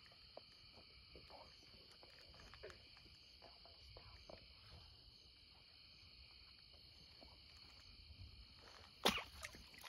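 Night insect chorus of crickets, a faint steady high-pitched trill, with soft scattered rustles and steps in mud and grass. About nine seconds in comes one sudden loud thump.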